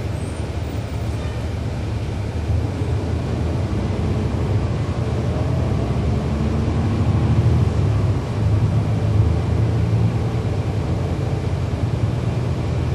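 A 2011 NABI 40-SFW transit bus's Cummins ISL9 diesel engine running under way, heard from inside the bus. The engine note builds from about two seconds in with a faint rising whine and dips briefly near eight seconds.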